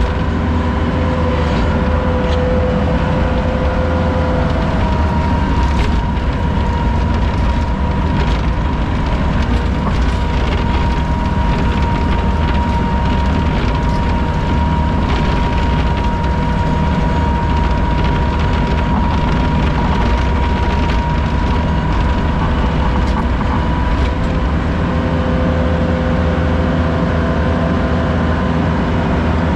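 A vehicle engine running steadily under load with a low rumble and a steady whine over it, the whine shifting in pitch around a few seconds in and again near the end.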